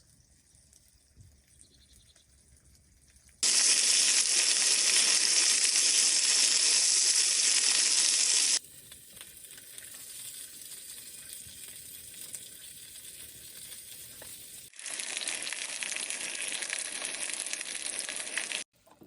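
Food sizzling as it fries in a pan, in three stretches with abrupt cuts between them. It starts about three seconds in, loud at first, then quieter, then louder again, and cuts off just before the end.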